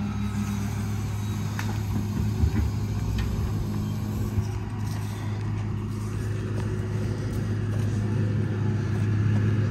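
Heavy machinery engine running steadily, with a few sharp knocks in the first half and getting a little louder near the end.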